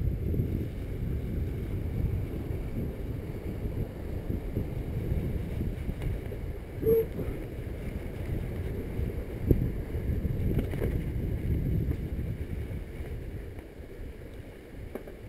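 Wind buffeting the camera microphone over a low, steady rumble of fast travel down a dirt trail. There is a brief squeak about seven seconds in and a sharp knock a couple of seconds later.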